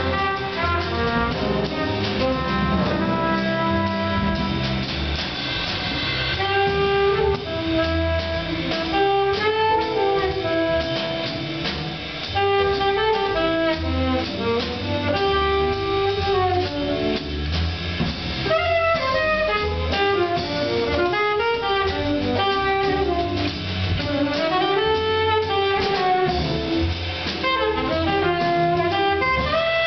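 Seven-piece jazz combo playing live: trumpet, alto and tenor saxophones, guitar, piano, upright bass and drum kit, with a horn melody moving over the rhythm section.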